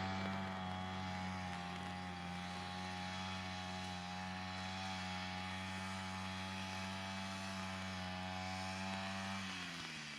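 A machine motor running at a steady speed with a low hum, then slowing down in pitch near the end as it winds down.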